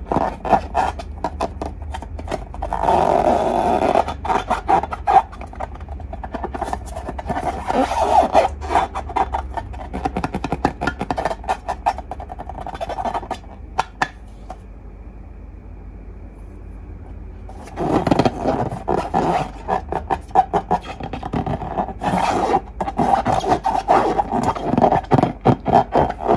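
Slime and balloons handled by hand: a dense run of sticky, crackling clicks and squeaks, with a quieter pause a little past halfway before it starts again.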